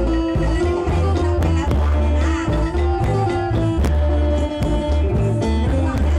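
Amplified live folk music for the khaen courtship dance: a khaen (bamboo free-reed mouth organ) holding sustained notes over a steady drum beat with heavy bass, played through the stage speakers.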